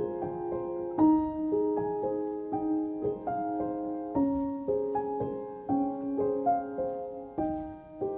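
Background music: gentle solo piano playing a slow melody over held chords, a new note struck about every half second to second.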